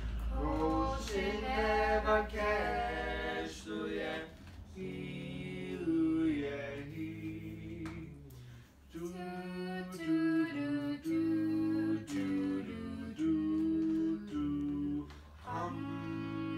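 Two men and a woman singing a cappella in harmony, holding long notes that move from chord to chord.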